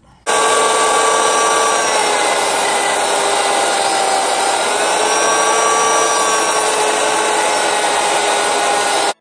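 Cordless rotary tool running at high speed against metal, cutting around a bolt, with a steady whine that drifts a little in pitch as it loads. It starts abruptly just after the start and cuts off just before the end.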